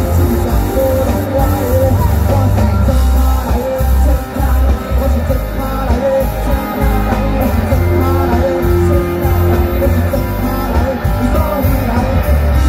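Live rock band playing, with drum kit, electric bass and electric guitar under amplified singing. The heavy bass and drums run steadily throughout.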